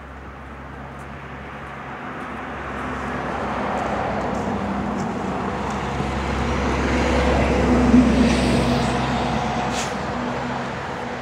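A motor vehicle engine passing on the road. Its hum and tyre noise build over several seconds, are loudest about eight seconds in, then fade.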